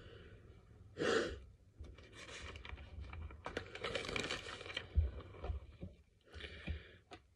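Faint rustling, crinkling and light clicks as small makeup items are handled and swapped, with a short breath about a second in and a low bump about five seconds in.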